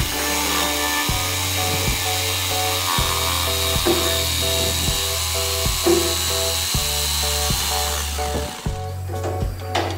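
Background music with a steady bass line, over the high whine of a woodworking power tool that dies away about eight seconds in. Near the end, sharp rhythmic drum beats in the music come in.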